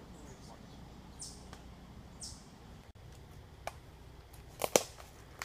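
Quiet woodland background with a few short, high bird chirps. Then footsteps crunch on a leaf-strewn forest trail, with a couple of sharp snaps about four and a half seconds in, the loudest sounds here.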